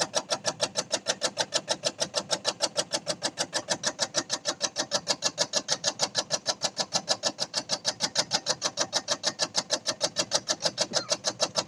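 Tobacco-shredding machine running, its blade chopping in a rapid, perfectly even clacking of about seven strokes a second, with a motor hum beneath.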